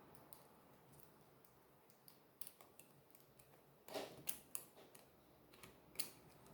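Faint scattered clicks and taps of small tools and plastic parts being handled on an opened tablet, with a quick cluster about four seconds in and one sharper click near the end.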